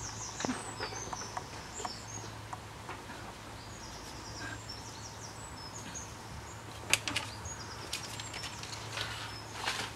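Small birds chirping in short, high, quick notes, with footsteps on stone paving and a sharper knock about seven seconds in, over a low steady hum.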